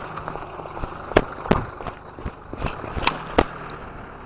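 Footsteps in snow, a few short sharp crunches roughly in pairs, over the steady low hum of a car engine idling nearby.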